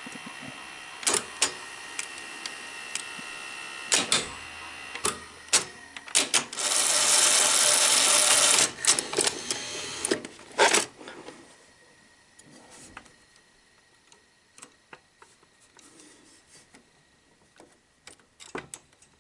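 Sony SL-5000 Betamax VCR mechanism clicking and clunking over a steady motor whine, with a loud hiss lasting about two seconds around seven seconds in. The whine fades after about eleven seconds, leaving faint scattered ticks.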